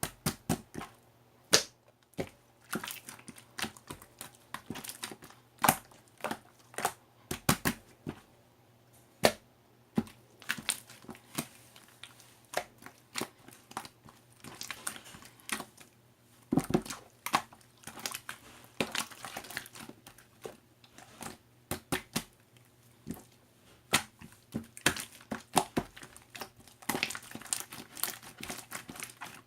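Crinkling and crackling of something being handled, with many sharp, irregular clicks and taps.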